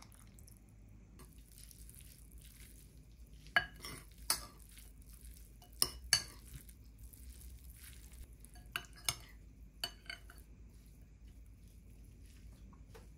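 Metal spoon stirring rice and vegetables in a ceramic bowl, scraping and clinking against the bowl, with about seven sharp clinks in the middle stretch.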